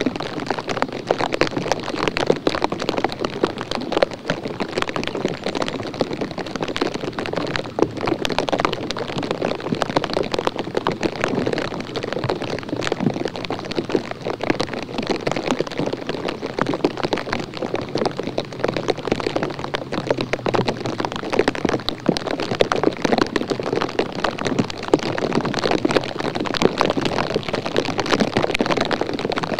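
Steady patter of rain, a dense, even crackle of drops.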